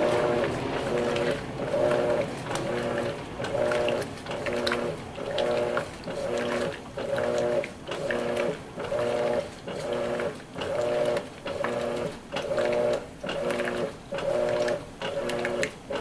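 Electrolux LWI13 top-load washing machine agitating during its first rinse: the motor hums in even pulses, a little more than one a second, with short gaps between strokes.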